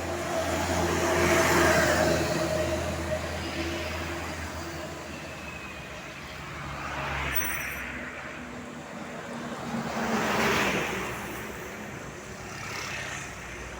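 Road traffic with vehicles passing close by one after another, each rising and fading away, four passes in all, the loudest about a second and a half in. A steady engine hum runs under the first pass.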